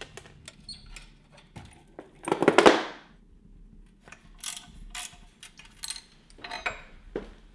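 Hand wrenches working tight bolts on a go-kart's engine mounting: scattered metallic clicks and clinks of tools on bolts, with a louder rasping burst about two and a half seconds in and more clusters of clicks later on. The bolts are tight and are being worked loose.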